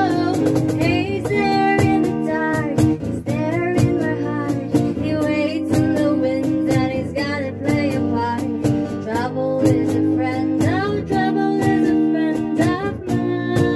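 A woman singing to two guitars playing chords, with a cajón keeping a steady beat of sharp hits.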